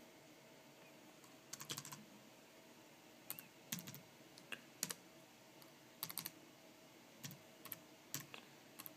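Faint typing on a computer keyboard: key clicks in short, irregular bursts of a few strokes, with pauses between them.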